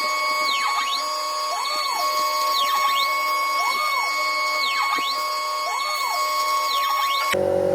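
Ratrig KillerBee CNC router machining aluminium: a steady high spindle whine, with the axis motors' pitch rising and falling about once a second as the machine moves back and forth.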